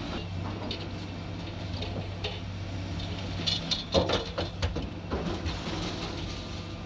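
An engine idling steadily under scattered metal clanks and knocks, with a cluster of louder clanks about four seconds in, as scrap metal is unloaded at a scrapyard.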